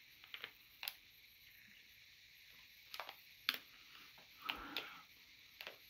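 Faint, scattered clicks and a short soft rustle: mouth sounds of someone tasting sour gummy candy, with the plastic candy packet being handled.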